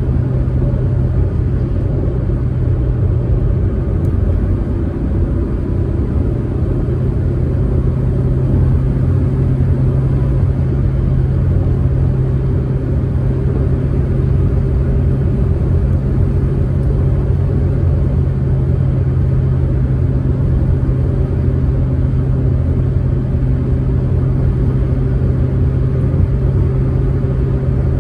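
Proton Saga MC2 car driving at a steady speed, its engine giving a constant low drone over road and tyre rumble, with no gear changes or revving.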